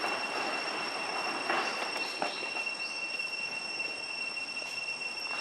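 Steady high-pitched drone of insects in the trees, a constant whine, with a few short rising chirps on top.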